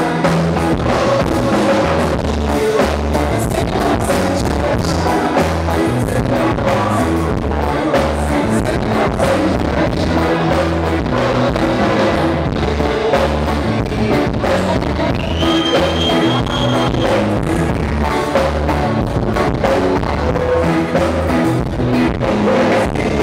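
Live reggae-rock band playing loud: a male singer on microphone over electric guitar, drum kit and a pulsing bass line.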